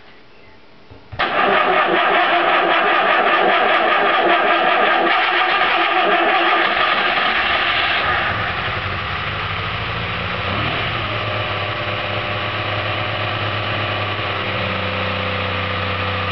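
Skoda 120GLS 1.2-litre four-cylinder engine fires about a second in, on its first start after assembly. It runs loud and fast for several seconds, then settles into a lower, steadier idle.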